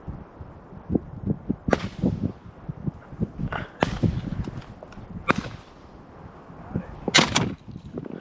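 Shotgun shots from dove hunters in the field, about five sharp cracks spread over several seconds with two in quick succession near the end, over low wind rumble on the microphone.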